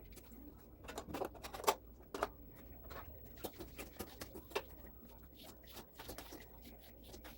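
Irregular light clicks and knocks of kitchen items being handled and set down during cleaning up, the sharpest knock a little under two seconds in.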